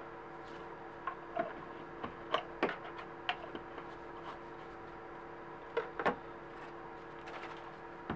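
Scattered small clicks and taps of items being handled and set down on a paper-towel-covered worktable, the loudest about six seconds in, over a steady hum.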